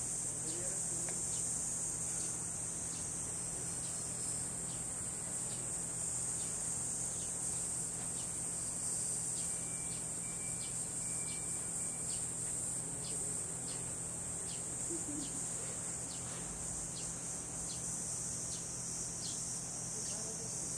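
Summer insect chorus, a steady high-pitched drone that does not let up, over a faint low hum.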